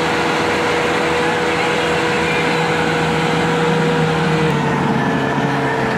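Engine of a mud-covered off-road 4x4 running steadily and loudly under load as the vehicle works through a deep mud pit.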